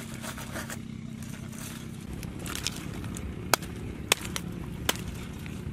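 Aluminium foil crinkling and tearing as a foil-wrapped roast chicken is cut open and unwrapped, with three sharp cracks in the second half, over a low steady rumble.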